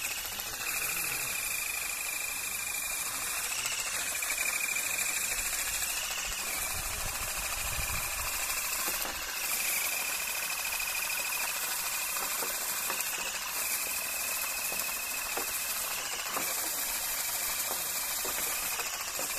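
Pole-mounted vibrating olive harvester running steadily in the tree's branches: a high motor whine over a hiss, sagging briefly in pitch several times as the head works the branches.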